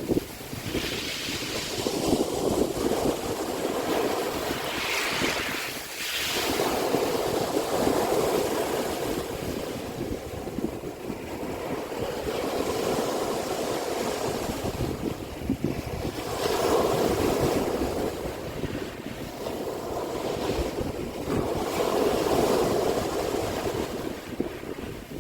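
Sea waves breaking and washing on the shore, swelling and ebbing in irregular surges several seconds apart.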